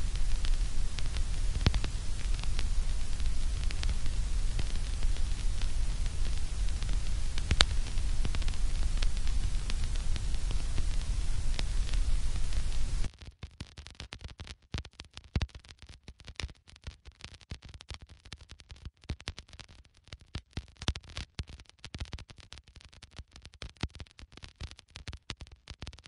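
Vinyl record surface noise: steady hiss and low rumble with scattered pops and clicks. About halfway through, the hiss and rumble cut off suddenly, leaving only sparse, quieter crackles.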